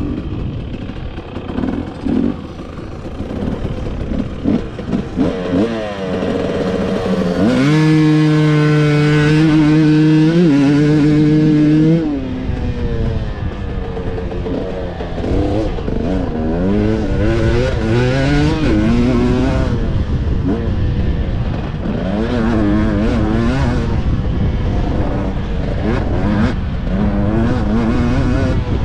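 Motocross bike engine revving hard as it is ridden round the track, pitch climbing and falling with each throttle change and gear shift. It holds high revs for several seconds about a third of the way in, then drops suddenly, followed by repeated rising revs.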